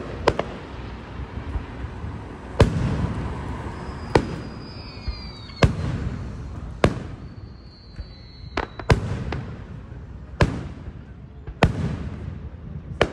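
Aerial fireworks bursting overhead: about nine sharp bangs, roughly one every second and a half, with two brief high whistles near the middle.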